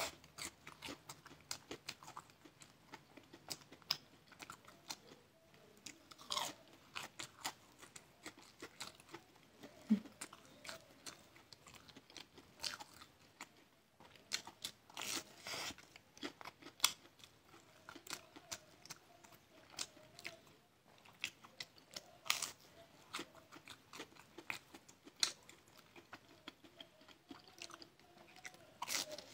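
Chewing and crunching of a breaded, deep-fried chicken cutlet with a soft molten filling. Crisp crunches come in bunches every few seconds, with quieter clicky chewing between them.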